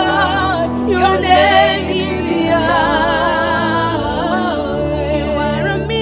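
Gospel worship music: a singing voice carrying a wavering melody with vibrato over sustained low chords.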